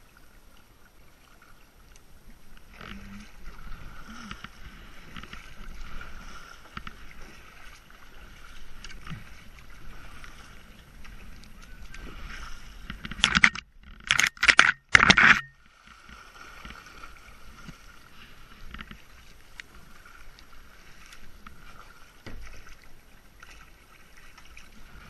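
Kayak paddles dipping and water washing around a kayak hull as it moves downstream. About halfway through comes a short cluster of loud splashes and knocks.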